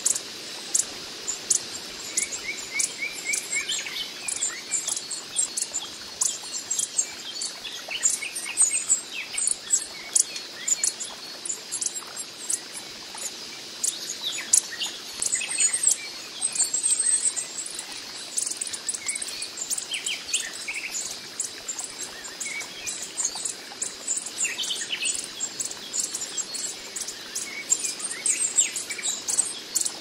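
Coppery-headed emerald hummingbird calling: a fast, continuous stream of thin, very high ticks and chips, mixed with short lower chirps.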